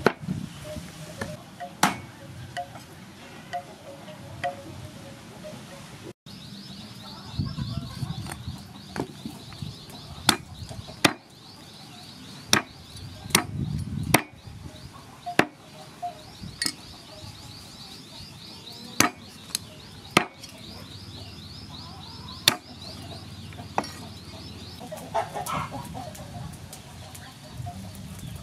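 A cleaver chops raw chicken into pieces on a wooden chopping block: single sharp chops, irregularly spaced a second or a few seconds apart.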